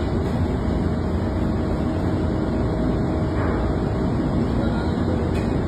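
Steady low rumble of ship's engine-room machinery running, with no single knock or event standing out.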